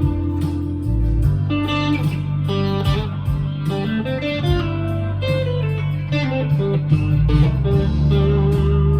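Chapman ML1 electric guitar playing a single-note melodic line along with a backing track of bass and a steady beat.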